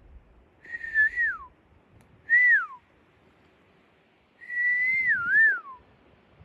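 A person whistling three short phrases close to the microphone, each a clear high tone that slides down at the end; the third is longer and wavers up and down before falling away.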